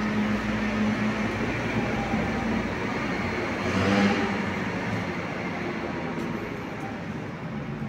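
A vehicle passing: a steady rushing noise that swells to its loudest about four seconds in, then slowly fades, over a low hum.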